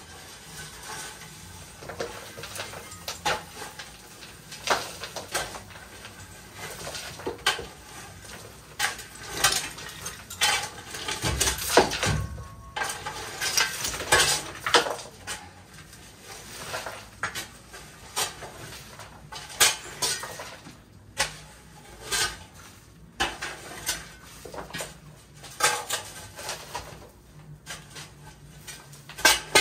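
A shovel scraping and scooping gravelly dirt and tipping it into a trench to backfill over a sewer pipe: an irregular run of scrapes and clattering stones about once a second, with one louder, deeper thump about twelve seconds in.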